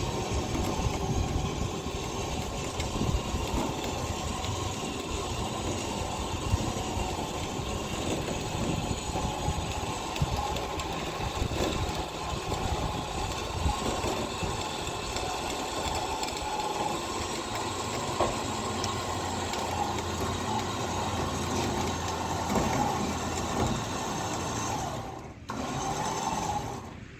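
Electric winch motor running steadily under load with a gear whine, pulling a car up trailer ramps. It cuts out briefly near the end and starts again.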